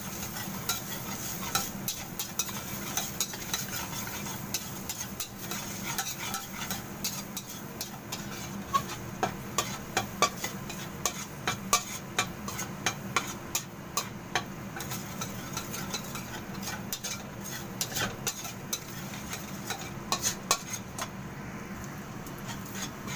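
Minced garlic sizzling in hot oil in a stainless steel wok, while a metal spatula stirs it, scraping and clicking sharply and irregularly against the wok.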